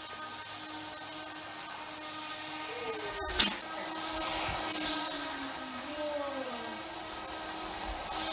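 Small 1600 kV brushless "Blue Wonder" motor spinning the propeller of a LEGO RC car: a steady whining buzz whose pitch slides down and back up as the throttle changes. A little over three seconds in, a brief gap and then a sharp click is the loudest moment.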